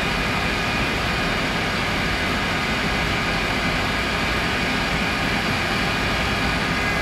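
Mori Seiki CNC vertical machining centre running a tiny end mill under flood coolant: a steady high whine over an even hiss of spindle and coolant spray.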